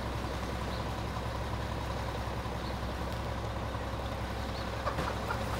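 Mack MR rear loader garbage truck idling while stopped: a steady low engine hum with a faint steady whine above it. A couple of light knocks come near the end.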